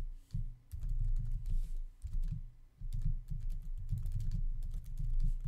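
Typing on a computer keyboard: quick runs of dull keystrokes, with a short pause about two seconds in.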